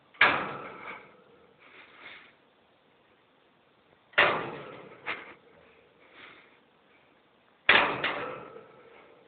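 A metal parrot cage rattled and knocked: three loud sharp knocks that ring out over about a second each, with a smaller knock just after the second and fainter clinks between.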